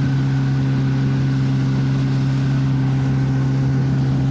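Boat motor running at a steady cruising speed, an even low hum with water and wind rushing past the moving hull.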